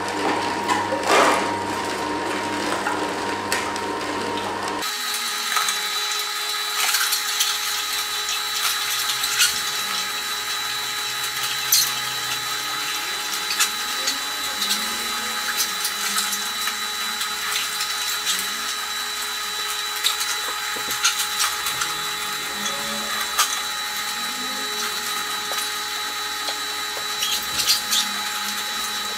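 Froothie Optimum 600 slow masticating juicer running with a steady motor whine, with irregular cracking and crunching as whole clementines are fed down the chute and crushed.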